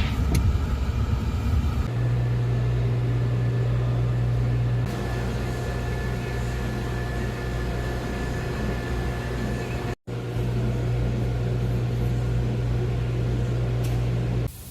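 Steady low mechanical hum from a running machine, broken by a brief dropout about ten seconds in.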